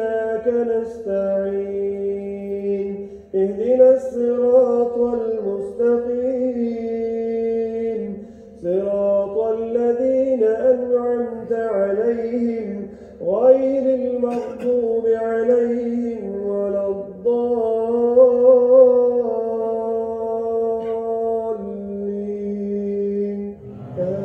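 An imam reciting the Quran aloud in a melodic chant during taraweeh prayer: one male voice drawing out long held notes in phrases, with short pauses for breath.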